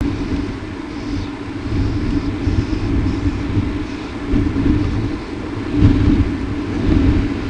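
Steady low background rumble with a constant hum, with no distinct event standing out.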